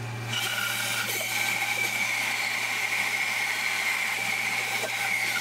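Bandsaw running with a steady hum, its blade cutting through a thick hardwood block of glued-up maple and cherry. The cutting hiss comes in about a third of a second in and then holds steady.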